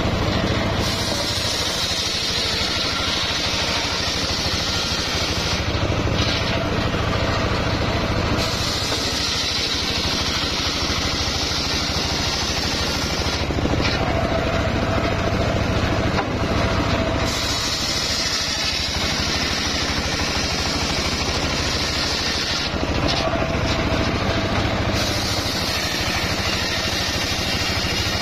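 Homemade engine-driven circular sawmill ripping a mahogany log. The engine and blade run steadily, and a high hissing cutting noise comes and goes in four stretches of about four to six seconds each as the log is pushed through the blade.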